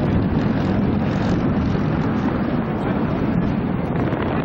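Wind blowing across the camera microphone: a steady, low, rumbling noise.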